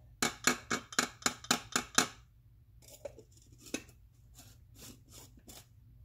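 Lido 3 hand coffee grinder body being tapped in a quick run of about eight sharp knocks, roughly four a second, knocking leftover grounds out of the burrs. A few softer, slower taps follow over the next few seconds.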